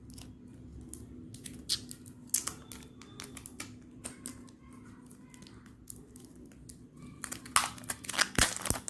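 Plastic protective wrap being handled and pulled off a new smartphone: scattered crinkles and clicks, growing denser and louder near the end.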